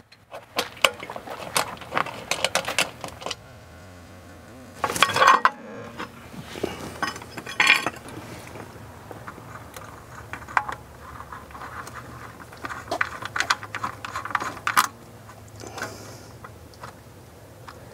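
Small plastic and metal parts being handled and fitted at a pool pump motor's wiring compartment as a conduit adapter goes in and cable is fed through. Scattered clicks, clinks and scrapes, with a louder clatter about five seconds in, over a low steady hum.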